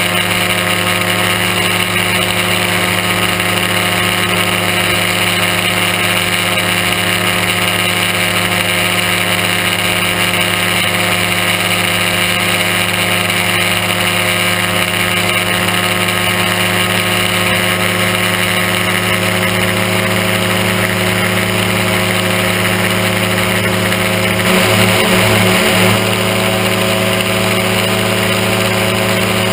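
Aerochute powered-parachute microlight's engine running steadily in cruising flight, heard from the pilot's seat. About 25 s in, its note briefly wavers and gets slightly louder for about a second, then settles back.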